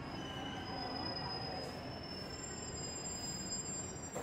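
Seoul Subway Line 5 train running: a steady rumble with thin, high-pitched wheel squeals that each hold for a couple of seconds.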